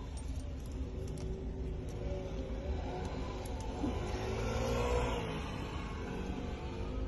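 A car running, with a steady low rumble; in the middle an engine note rises and swells as it accelerates, then settles back.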